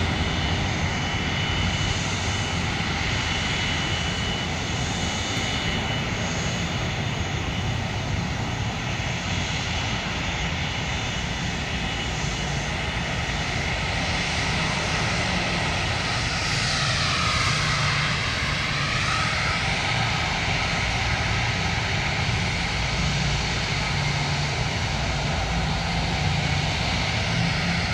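Fixed-wing aircraft engine noise, a steady loud rush, with a hollow sweep that dips in pitch and rises again a little past the middle as the aircraft passes close by.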